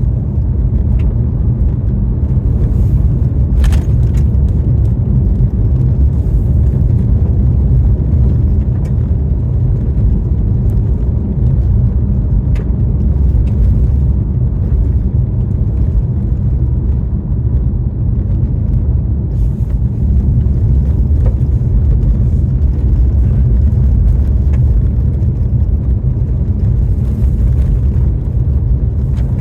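A car driving: a steady low rumble of road and engine noise with a few faint clicks.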